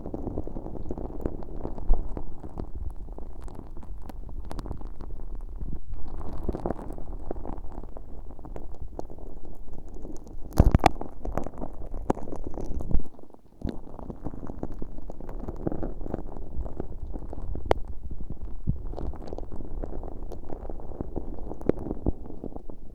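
Very sticky, fairly stiff slime full of fine holographic glitter squelching and crackling right on a bare ear-shaped microphone, with no plastic wrap over it: a continuous stream of wet, sticky clicks and pops. A louder cluster of pops comes about eleven seconds in.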